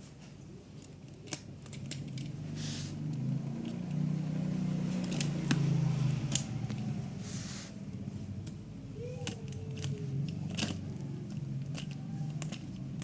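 Cardboard box packaging being cut and opened by hand: scattered clicks and crackles of cardboard and tape, with two short rasping passes, one near the start and one about halfway through. A low steady hum sits underneath.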